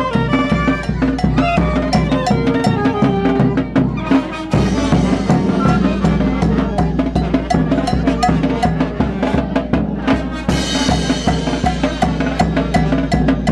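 Live street brass band music: a bass drum with a mounted cymbal beating a steady rhythm under trombone and other brass playing a tune. The music jumps abruptly twice, about four and ten seconds in.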